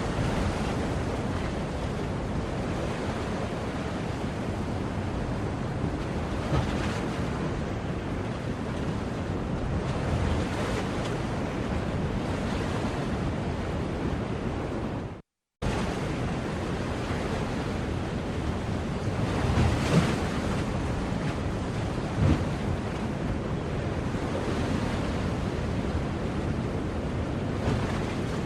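Sea waves washing on a shore: a steady rush of surf that swells and eases, cut by a sudden gap of silence, under half a second long, about halfway through.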